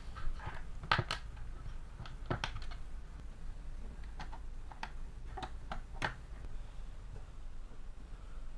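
Light clicks and knocks of Meccano parts being handled and set down on a tabletop as a motor unit is placed beside the model and a rubber drive belt fitted: a scattering of sharp clicks over a low steady hum.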